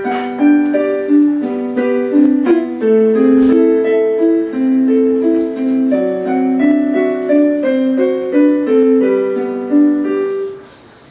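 Casio LK-300 electronic keyboard on its piano voice, playing a slow melody over lower accompanying notes; the notes stop and fade out about ten seconds in.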